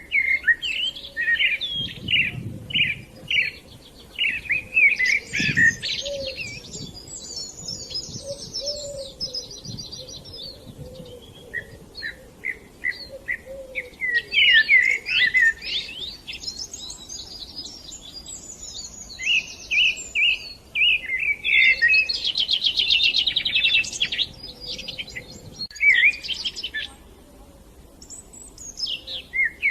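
Songbirds chirping and singing in a series of quick, varied phrases with short pauses between them, including a fast trill about three quarters of the way through.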